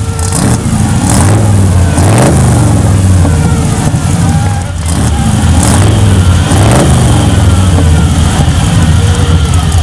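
1967 Chevrolet C10's 283 V8 running through its exhaust, blipped up in revs a couple of times, about two seconds in and again near seven seconds, between stretches of steady running.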